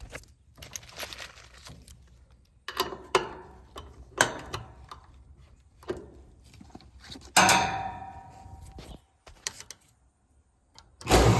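A run of irregular knocks and clatters, like tools and parts being handled; the loudest, about seven seconds in, rings on for over a second. Music starts right at the end.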